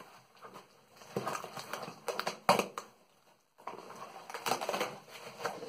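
Cardboard shipping box being torn open and handled: irregular ripping, scraping and rustling of cardboard as the flaps are pulled back and the contents drawn out, with one sharp rip about two and a half seconds in.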